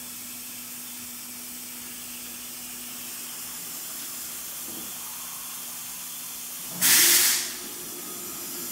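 MultiCam 3000 Series CNC router homing along its X and Y axes, its axis drives running with a steady hum over a background hiss. About seven seconds in there is a short, loud hiss, after which the hum sits a little higher.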